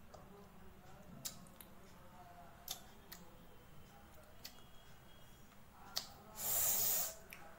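A young girl eating with a spoon: scattered sharp clicks from the spoon and her mouth, then a short loud hiss of breath about six and a half seconds in.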